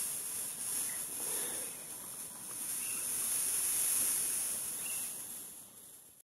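Steady high-pitched insect hiss with a few faint bird chirps.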